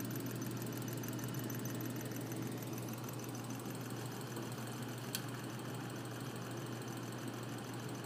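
Homemade solenoid engine running steadily, its solenoid pulling the crank round and spinning the flywheel, with a steady low hum. One sharp click about five seconds in.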